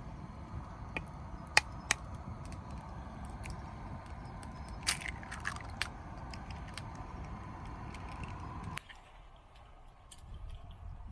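Wood fire crackling, with sharp pops and cracks over a steady low rumble; the sound cuts off abruptly near the end and something quieter with light ticks follows.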